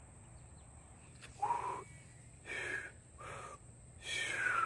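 A man trying and failing to whistle: four short, breathy blows of air through the lips with only a faint tone, starting about a second and a half in, the last one sliding down in pitch.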